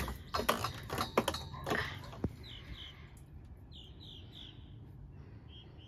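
Sharp plastic clicks and knocks as the sink's corrugated plastic drain hose is handled. Then faint bird chirps come in short groups of two or three.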